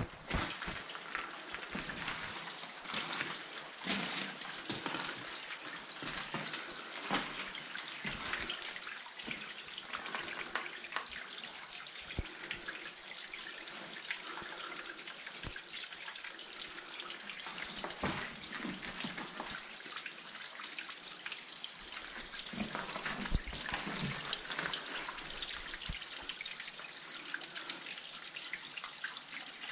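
Spring water dripping and trickling from the rock of a small cave, with many separate drops over a steady trickle.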